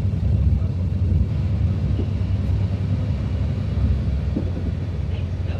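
Steady low rumble of a TER commuter train running on the rails, heard from inside the passenger carriage.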